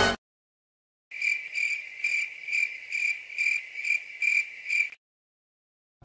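Cricket chirping sound effect: about nine even, high chirps, roughly two a second, starting about a second in and stopping abruptly near the end. This is the stock comedy "crickets" cue for an awkward silence.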